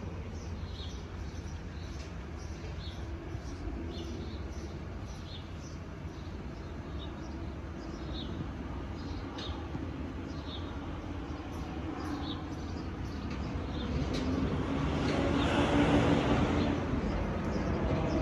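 Jet airliner on landing approach: its engine noise swells over the last several seconds, loudest about three seconds before the end, over a steady low rumble. Birds chirp repeatedly, about once a second.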